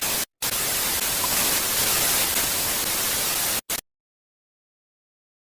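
Broken-TV static hiss, white noise cutting in and out abruptly: a brief burst, a short gap, about three seconds of steady hiss, a short blip, then it drops to dead silence for the last two seconds or so.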